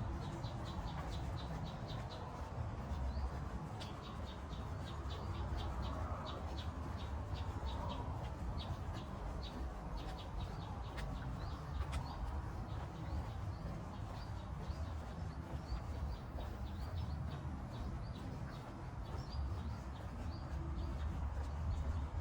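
Birds chirping in quick runs of short, high notes, several a second, over a steady low rumble.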